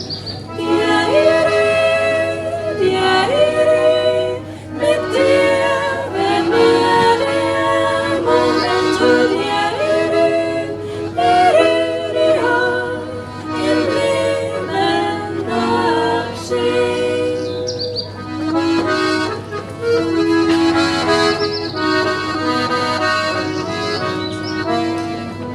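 Accordion music, a melody over held chords, easing off near the end.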